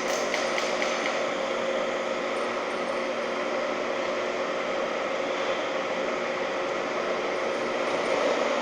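Holzmann ED 1000 metal lathe running steadily at about 770 rpm while turning a steel workpiece: an even hum with several constant tones over a hiss of cutting noise, with a few light clicks right at the start.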